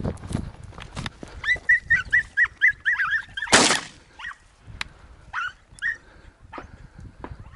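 A Brittany hunting dog giving a quick run of about ten high, excited yips, then a single shotgun shot about three and a half seconds in, the loudest sound. A few more yips follow.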